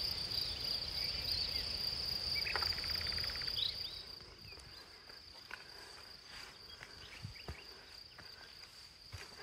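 Steady high-pitched insect drone in summer woodland, with a short rapid bird trill and a chirp about three seconds in. Soft footsteps on a dirt trail can be heard in the second half.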